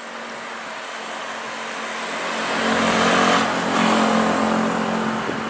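A vehicle passing close by: a steady low hum and a broad rushing noise swell to a peak a little past the middle, then ease off.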